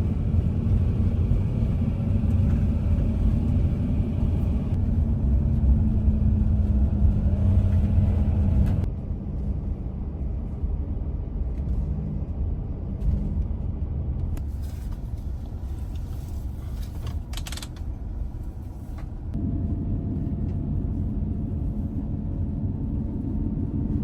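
A motor vehicle driving: a steady low rumble of engine and road noise, which shifts abruptly in level and character about 9 seconds in and again about 19 seconds in.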